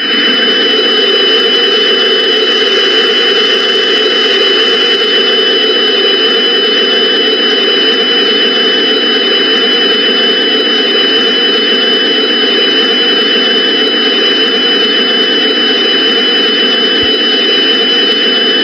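Loud, steady noise drone with two high steady tones over it, an EAS-style background sound bed; it starts abruptly and cuts off suddenly at the end.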